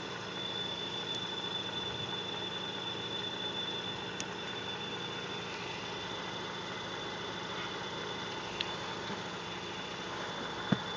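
A steady high-pitched whine from near the ECU of a Mazda RX-8, heard over the running of the car's Renesis rotary engine, with a couple of faint ticks and a short sharp knock near the end.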